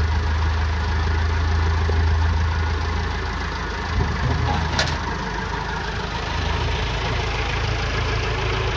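Wheel loader engine running steadily, its note shifting a little about four seconds in, with one sharp click shortly after.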